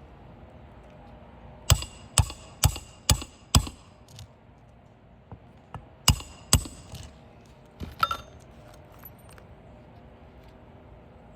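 Hammer driving roofing nails through a shingle: five sharp strikes about half a second apart, then two more a couple of seconds later and a few lighter taps after.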